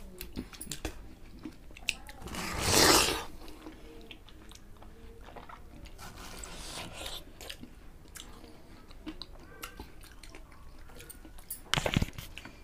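Two people biting and chewing ripe watermelon straight from the slice without hands: wet crunching and small juicy clicks throughout. There is one louder rush of noise lasting about a second a little over two seconds in, and a louder burst of crunching near the end.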